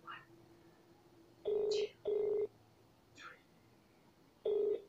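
Ringback tone of an outgoing call playing over a smartphone's loudspeaker: a double ring of two short beeps about a second and a half in, a pause, then the next ring starting near the end.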